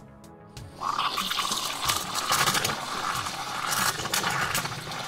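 Espresso machine steam wand steaming milk in a stainless steel pitcher: a loud, steady hiss that starts about a second in.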